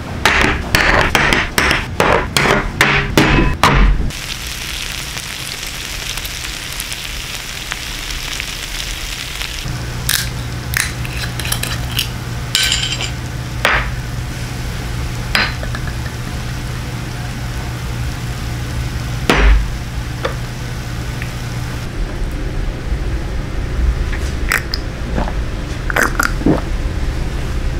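Dishes and glasses clinking as they are set down and handled on a restaurant table, with a quick run of knocks at the start, then a steady sizzling hiss of grilled bulgogi on a hot iron plate, followed by scattered clinks of a glass soju bottle and shot glass.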